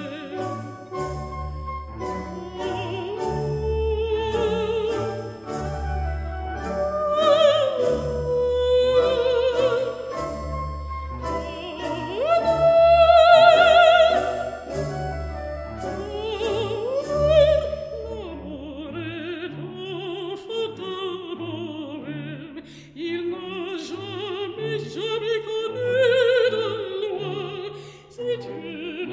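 Operatic singing with orchestral accompaniment: a solo voice with wide vibrato over sustained strings, swelling to a long, loud held note about halfway through.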